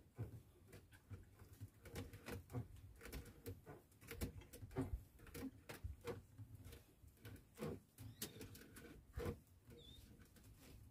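Faint, irregular light clicks and knocks scattered throughout, over a low steady hum.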